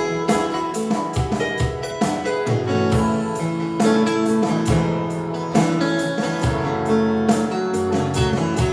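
Live band playing an instrumental song intro: strummed guitar chords over a drum kit keeping a steady beat.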